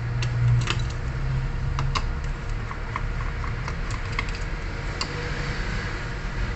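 Irregular small clicks and taps of hand tools and screws as a graphics card is taken apart, over a steady low hum.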